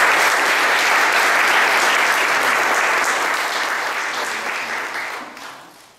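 Audience and panelists applauding, a steady round of clapping that tapers off and fades out near the end.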